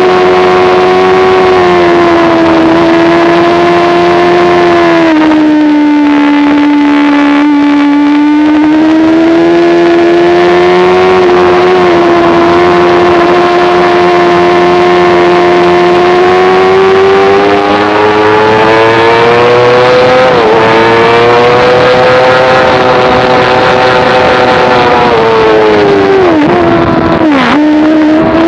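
Sport motorcycle engine running hard at high revs, heard from on board with wind rush. Its pitch drops about five seconds in, climbs steadily for a long stretch, then falls sharply and wavers near the end before picking up again.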